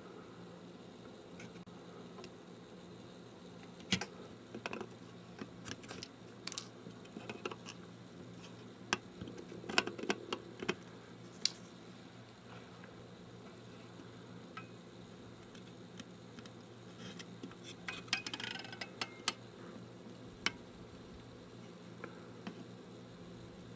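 Scattered light clicks and taps of small hand tools and components being handled during capacitor replacement on a circuit board, thickest between about 4 and 12 seconds in and again around 18 seconds, over a low steady hum.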